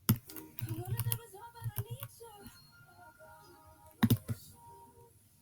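Clicks from working a computer: a sharp click at the start, a run of lighter clicks, then a quick double click about four seconds in. Faint music plays underneath.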